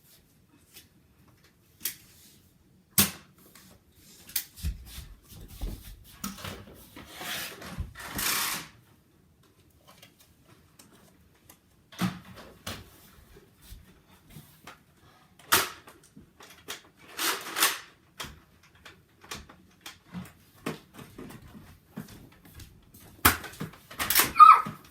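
Scattered sharp clicks and knocks, a few of them loud, with two short stretches of rustling, from Nerf blasters and players moving about in a small room.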